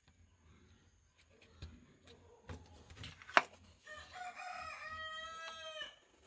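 Small clicks and knocks of a circuit board being pushed into a snug wooden box, with one sharp click about halfway through. In the second half a long pitched animal call is held for about two seconds.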